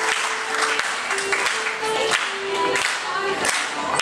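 Folk dance music for a halling, a melody of held notes, with hand clapping and voices from the onlookers.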